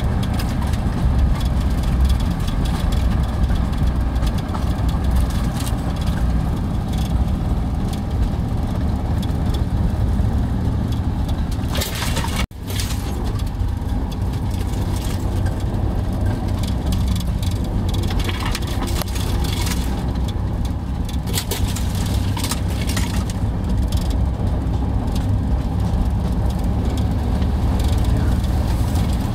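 Narrow-gauge diesel locomotive running under way, heard from inside the cab: a steady low engine rumble with many small knocks and rattles. The sound breaks off for an instant about twelve seconds in, then carries on the same.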